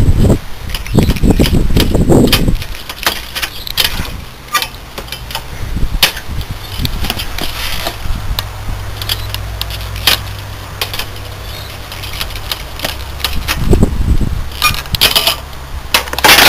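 Pruning secateurs snipping through thin copper refrigerant pipes on an air-conditioner condenser coil: a series of short sharp clicks and snaps, with the cut copper tubing clinking as it is handled.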